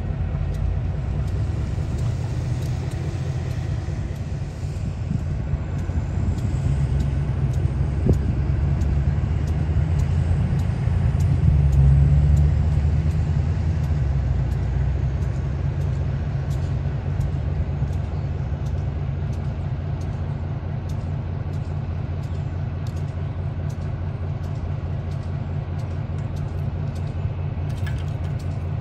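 EMD SW1200 switcher locomotive's 12-cylinder diesel engine running with a steady low rumble, growing louder for a couple of seconds around the middle.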